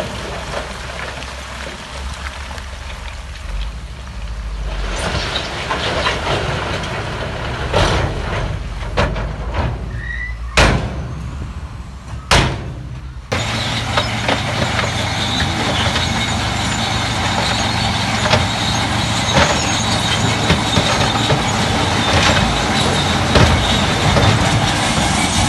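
Heavy earthmoving machinery at work: diesel engines running with scattered metal clanks and squeals. Two sharp bangs come a little before the middle, and about halfway through the sound turns abruptly to a fuller, steady engine hum.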